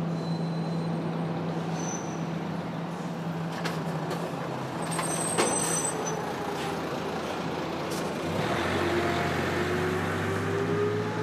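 Assembly-line machinery noise: a steady low hum, a few sharp clicks about halfway through, and a whine that rises slowly from about eight seconds in.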